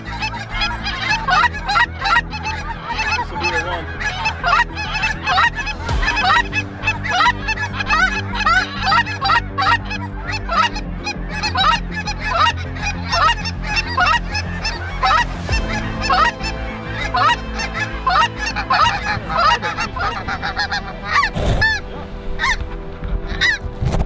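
Large flock of snow geese calling: a dense, unbroken clamour of many short, rising honks.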